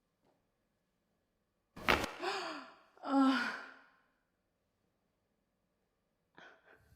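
A person's startled vocal reaction to a sudden chiropractic adjustment. It opens with a sharp burst, turns into a cry that falls in pitch, and is followed by a second, shorter exclamation.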